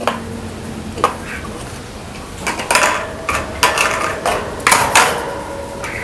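Irregular clattering and knocks as a crow pecks at and picks up a plastic water-gallon cap on the floor of its wire cage, some knocks followed by a brief ringing.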